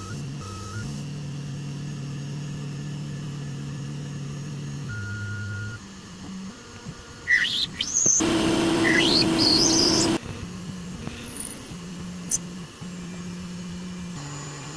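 Tormach PCNC 1100 CNC mill running a drilling cycle in aluminium plate. A steady machine hum steps in pitch as the axes and spindle move. About eight seconds in, a louder two-second burst of cutting noise comes with high, gliding squeals as the drill bites into the plate.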